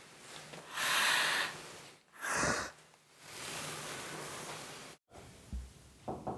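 A woman crying in heavy, noisy breaths: a sharp sobbing breath about a second in, a shorter one soon after, then a long breathy exhale that cuts off suddenly about five seconds in.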